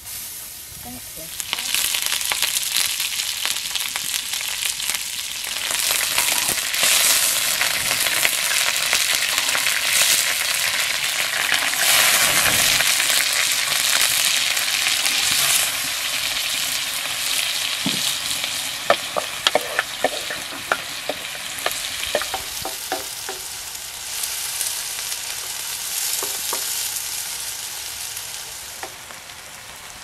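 Hot fat and diced potatoes frying in a large black pan, a loud steady sizzle that starts about a second and a half in. A cluster of sharp pops and ticks comes about two-thirds of the way through.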